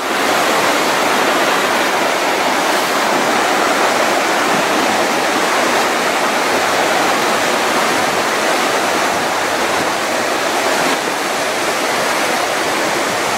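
The Little Qualicum River rushing over rapids: a loud, steady roar of fast-flowing water.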